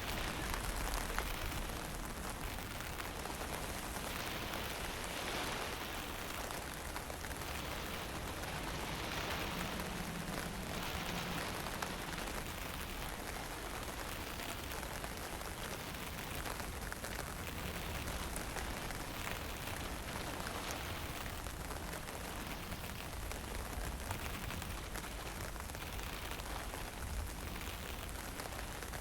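Fine misty drizzle falling, a steady even hiss that swells and eases every few seconds, over a low rumble of wind.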